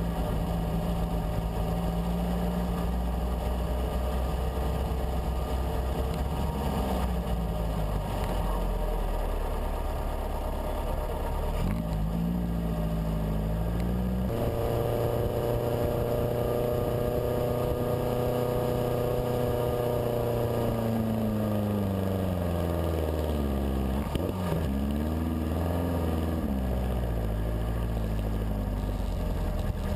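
Dune buggy engine running as it drives over the sand, its pitch rising and falling with the throttle: held steady for several seconds past the middle, then dropping away, with a couple of short rises and falls near the end. Wind rushes over the microphone throughout.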